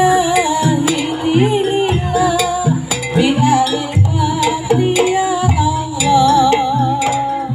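Jaranan accompaniment music from a Javanese gamelan-style ensemble: heavy low drum strokes under a wavering melody line with strong vibrato.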